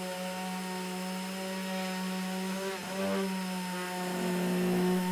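Random orbital sander running on the gelcoat of a glass-fibre (GRP) composite panel, a steady hum with higher tones over a hiss. Its pitch dips briefly about three seconds in, and it grows a little louder after that.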